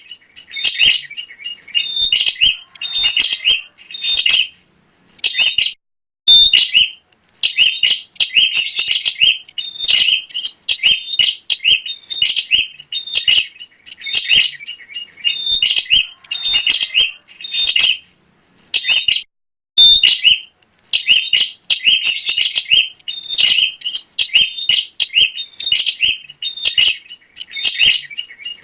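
Prenjak (prinia) singing in full voice: long runs of rapid, high chattering chirps with a few short pauses.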